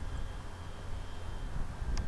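Outdoor wind rumbling on the microphone, with a faint thin high whine that fades out about one and a half seconds in.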